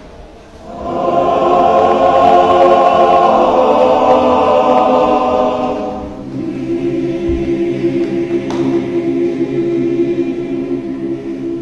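Men's church choir singing in held chords: the voices come in strongly about a second in, then drop to a softer, lower sustained chord from about six seconds.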